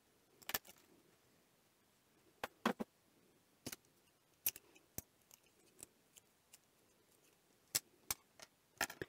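Scattered sharp clicks and taps from handling a small surface-mount MOSFET and a component tester's test leads on a bench mat. There are about ten in all, with a quick cluster of three about two and a half seconds in and more near the end.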